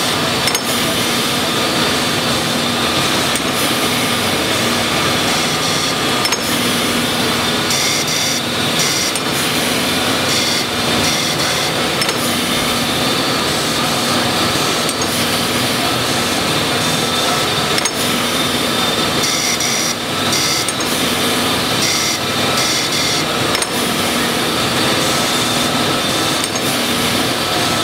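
Mattison surface grinder's segmented wheel grinding steel parts under coolant: a loud, steady grinding hiss, with occasional small clicks.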